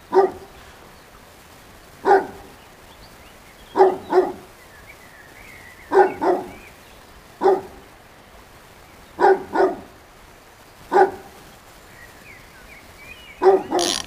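A dog barking repeatedly, about a dozen short barks, singly or in pairs, every two seconds or so.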